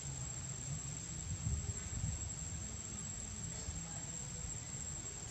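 Outdoor ambience: a steady high-pitched insect drone over a low, unsteady rumble.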